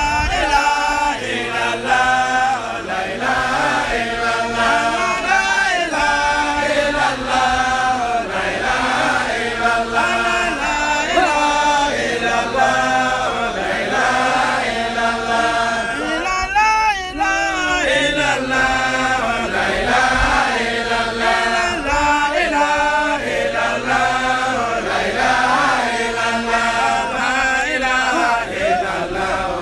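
Group of men chanting together in unison, a continuous Islamic devotional chant with the melody rising and falling.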